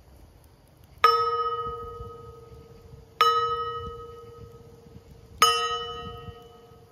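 Small gong on a stand struck three times with a mallet, about two seconds apart; each stroke rings on a steady mid-pitched tone with bright overtones and slowly dies away.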